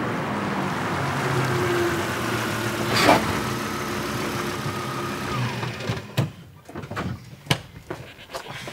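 Car engine running as the car pulls up, with a short sharp noise about three seconds in. The engine is switched off about six seconds in, followed by a few sharp clicks and knocks of the car door being opened.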